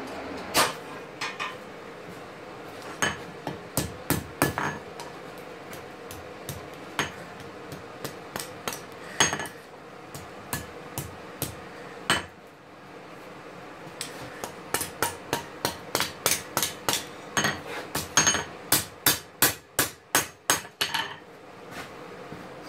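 Hand hammer striking steel on an anvil, forging a knife blade: spaced, irregular blows at first, then a quick run of about three blows a second near the end, each with a short metallic ring.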